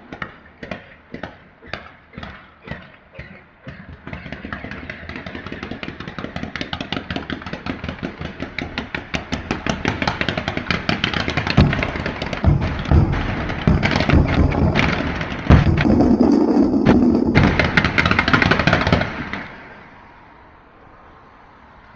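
Fireworks going off in a long string of bangs. At first there are separate sharp cracks two or three a second; from about four seconds in they quicken into a dense, rapid crackle that grows louder and then stops abruptly near the end.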